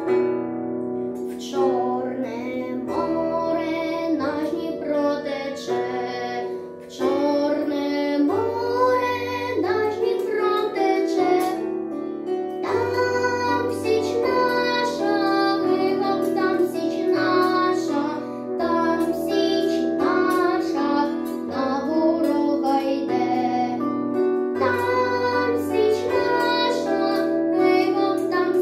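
A boy singing a Ukrainian song over a backing track with bass and piano or plucked-string accompaniment.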